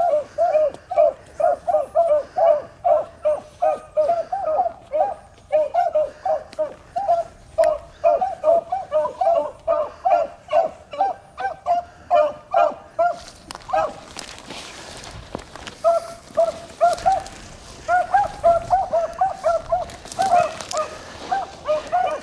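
Pack of beagles baying on a rabbit's track, in rapid barks about three a second. The baying breaks off for a couple of seconds about two-thirds of the way through, leaving a rushing noise, then resumes.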